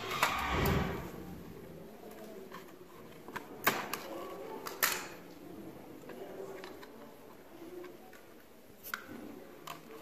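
Handling noise from a refrigerator's main control board and its plastic wire-harness connectors: a rustling scrape at the start, then a few sharp clicks as plugs are worked loose or seated.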